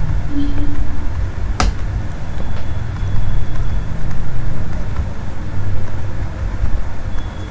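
A steady low rumble with one sharp click about one and a half seconds in.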